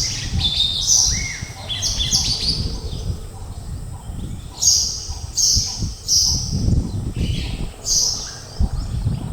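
A bird calling in a quick series of short, high, repeated notes, some sliding down in pitch, with a rising whistle about a second and a half in. A low rumble runs underneath.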